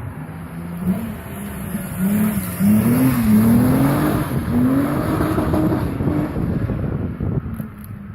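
Volkswagen Golf VR6's six-cylinder engine accelerating hard through the gears. The engine note climbs and drops back several times as it shifts up, is loudest about three seconds in, then fades away.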